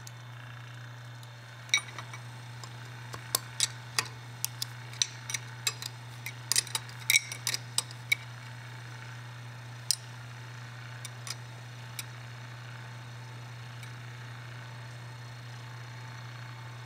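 Electric on-off valve actuator's motor running with a steady low hum as it drives the ball valve toward the closed position. Over it, during roughly the first twelve seconds, a wrench and an Allen key clink against the actuator's stop bolt in sharp metallic ticks.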